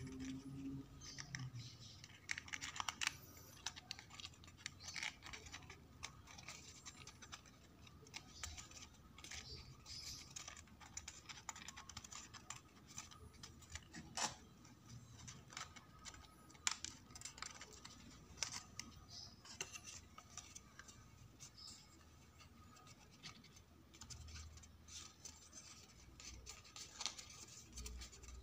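Printed card paper model parts handled and bent by hand: irregular soft rustles, crinkles and small sharp clicks and taps.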